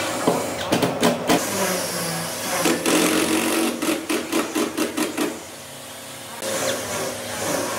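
Workshop tool work on wood: a few sharp knocks, then a quick run of even strikes at about five a second, followed near the end by a steady hiss.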